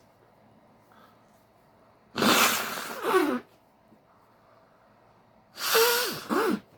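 A man blowing his nose hard, twice: two loud, forceful blasts of air through the nose, each with a honking, wavering pitch and a second short push at its end.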